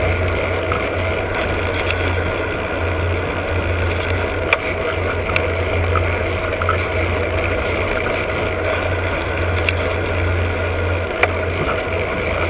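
Steady riding noise of a road bike picked up by a camera under the saddle: tyres rolling on asphalt and wind on the microphone, with a constant low rumble and a few sharp ticks from the bike or camera mount over bumps.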